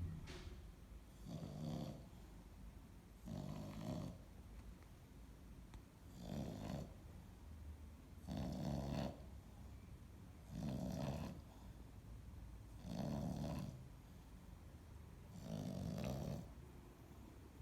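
A dog snoring, a snore about every two seconds, each lasting about a second, seven in all.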